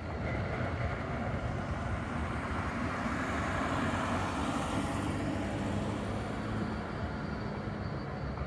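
A car driving past close by, its tyre and engine noise swelling to a peak about halfway through and then fading. A steady low rumble of city traffic lies underneath.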